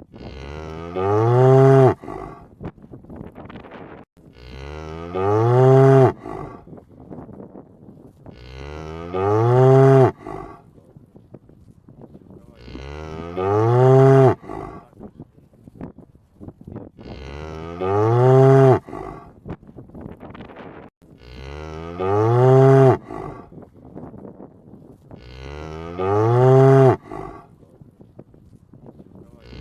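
A cow mooing: the same long moo, rising then falling in pitch, repeated at an even spacing of about four seconds, seven times.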